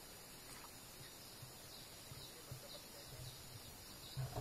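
Faint steady outdoor background noise by a river, with faint scattered high chirps.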